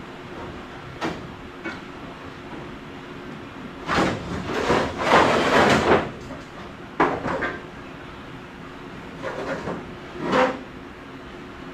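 Knocks and clanks from old truck parts being handled, with a loud scrape of metal across metal lasting about two seconds midway. A faint steady hum runs underneath.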